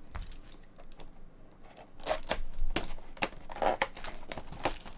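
Plastic shrink wrap being torn and peeled off a trading-card box, crinkling. It is quiet at first, and the sharp crackling starts about two seconds in.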